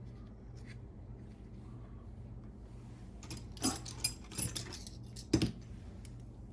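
A few sharp clicks and clatters of small hard parts being handled, four or five in the second half, the loudest near the end.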